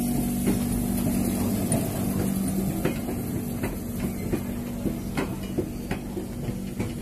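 Blackpool's Western Train illuminated electric tram rolling slowly past. A steady hum is strongest at first and fades after a second or two, with a string of irregular clicks and knocks from the wheels on the track.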